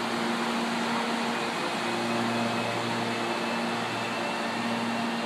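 CPTM Series 8500 electric multiple-unit train pulling out of the platform: a steady electric hum of its motors and equipment with several held tones, and a thin higher whine that comes in about a second and a half in.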